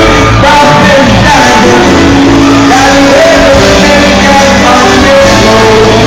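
Live island-music band playing, with voices singing and shouting over a steady bass and drum beat; recorded on a phone at full level.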